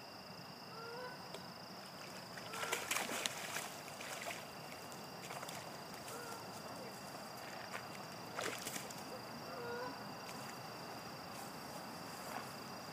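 Steady high drone of insects such as crickets, two thin unchanging tones, with brief rustling noises about three seconds in and again about eight seconds in.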